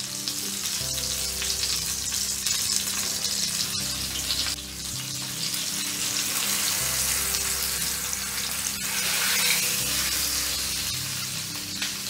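Oil sizzling steadily around a stuffed black pomfret shallow-frying in a cast iron skillet. The sizzle swells about nine seconds in as the fish is turned over with tongs.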